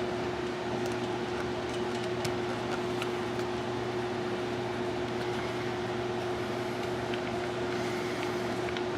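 A steady hum with one constant tone over a background hiss, with a few faint clicks about two and three seconds in.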